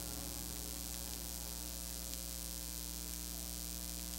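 Steady electrical mains hum with a faint hiss, unchanging throughout, on the soundtrack of a VHS tape transfer.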